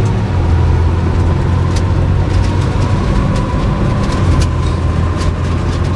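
Cab interior of a Ram pickup with a Cummins turbo diesel on the move: a steady low engine and road rumble, with paper over the rear window flapping and rattling in scattered sharp ticks.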